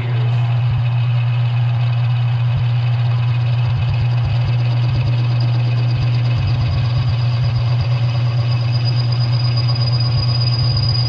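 Smithy CB-1220XL combination lathe-mill running with the chuck spinning and the carriage driven by the power feed, taking a cut on a metal workpiece. A loud, steady motor-and-gear hum with a faint high whine, and irregular low thumps from about three seconds in.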